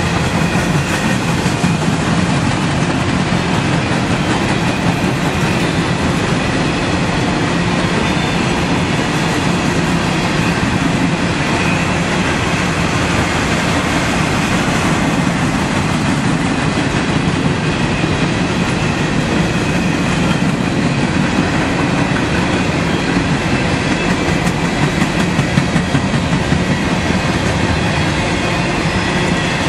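Freight train's cars passing: covered hoppers, boxcars and tank cars rolling by with a steady, unbroken rumble of steel wheels on the rails.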